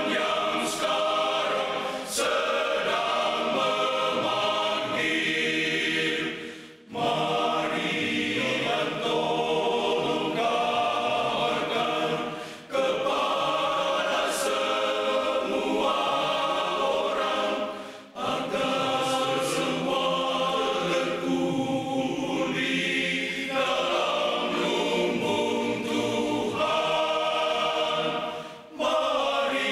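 Men's choir singing in harmony, with short breaks between phrases.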